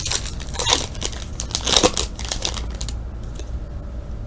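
Plastic wrapper of a 2013 Fleer Retro basketball card pack crinkling and tearing as it is ripped open by hand. The rustling runs for about three seconds, then dies down.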